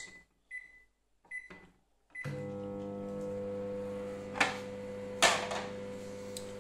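De'Longhi microwave oven's control panel beeping three times as it is set, then the oven starting up on full power and running with a steady electrical hum. Two sharp clicks come a few seconds in.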